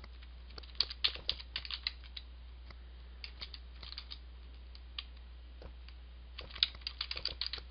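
Computer keyboard keys clicking in several short runs of typing with pauses between, as shell commands are typed.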